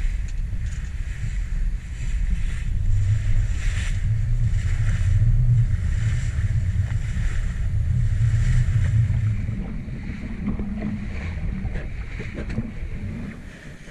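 Wind buffeting the microphone over the rush and splash of waves along a sailboat's hull under way. The wind rumble eases about ten seconds in.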